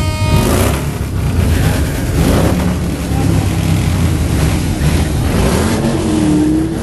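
Motorcycle engines running and revving in a crowd, with voices mixed in. A steady held tone cuts off about half a second in.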